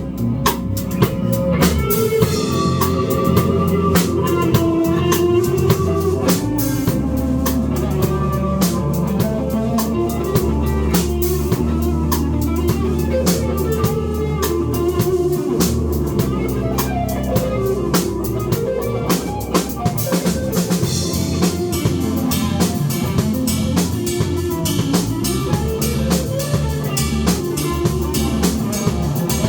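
Live rock band playing: a drum kit keeping a busy beat under guitars.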